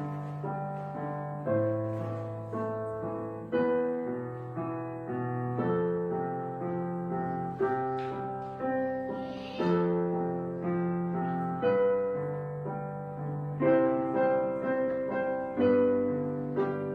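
Background piano music: a slow, gentle tune of struck notes and chords over low bass notes.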